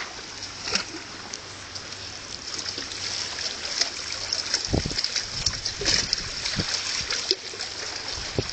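Water lapping and splashing at the edge, a steady trickling hiss full of small splashes, with a few dull low thumps from about halfway in.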